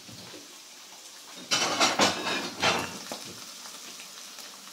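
Diced guanciale sizzling in hot oil in a frying pan, the fat hot enough that the pieces are starting to smoke. A louder rush of sizzling noise comes from about a second and a half in until about three seconds in.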